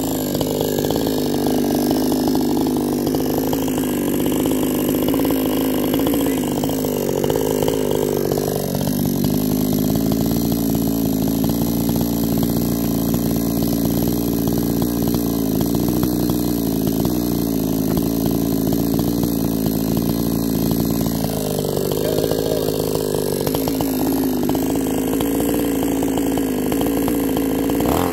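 Low-cost two-stroke chainsaw idling steadily, its engine note wavering a little, then revving up sharply at the very end.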